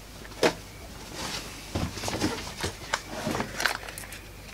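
Scattered light clicks and knocks of small parts being handled at a workbench, the sharpest about half a second in, with several more through the middle.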